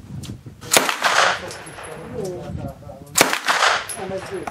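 Two single shots from a semi-auto-converted MP40 submachine gun in 9mm Parabellum, fired about two and a half seconds apart, each followed by a short ringing echo.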